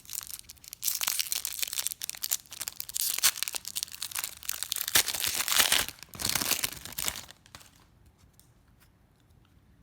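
A 1997-98 Topps Series 2 basketball card pack wrapper being torn open and crinkled in rapid crackling bursts for about six seconds, stopping a little after seven seconds in; only faint light ticks follow.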